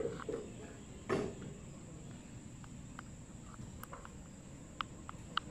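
Faint, scattered short chirps of night insects, with one brief rustle about a second in.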